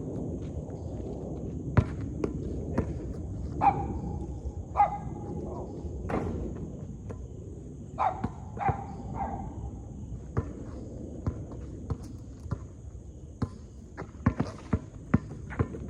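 A basketball being dribbled and players' shoes stepping and scuffing on a court in one-on-one play: irregular thuds, several followed by a brief ringing tone. A steady faint high whine runs underneath.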